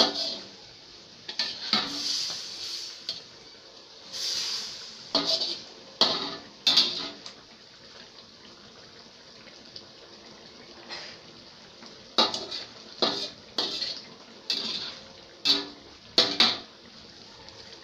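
Metal spatula and ladle clinking and scraping against a stainless steel wok while a fish stew is stirred and scooped, in two bursts of a dozen or so sharp knocks and short scrapes with a quieter stretch of several seconds between them.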